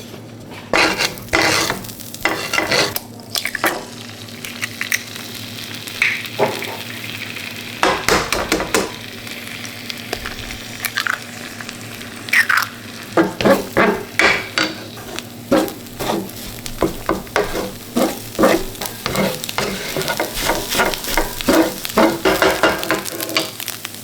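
Minced beef frying in a pan with a steady sizzle, while a utensil stirs and scrapes it, clicking against the pan. The clicks and scrapes come in quick runs through the second half. The mince is being cooked on past looking done, to brown it.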